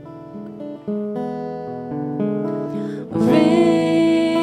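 Acoustic guitar picking slow chords in a worship song; about three seconds in, a voice comes in singing a long, wavering note.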